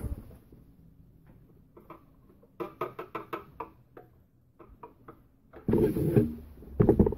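Brass propeller shaft tube being test-fitted by hand in a freshly drilled hole in a fiberglass model boat hull: a quick run of light clicks and taps about two and a half seconds in, a few more a little later, then louder rubbing and knocking in the last second and a half.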